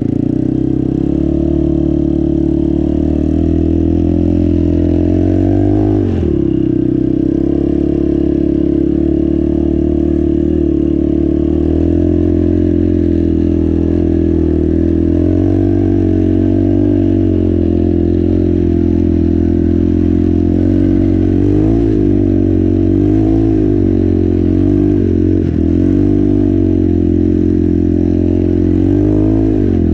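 Yamaha Warrior 350 ATV's single-cylinder four-stroke engine running under load. Its pitch dips and picks up again about six seconds in, and rises and falls repeatedly with the throttle near the end.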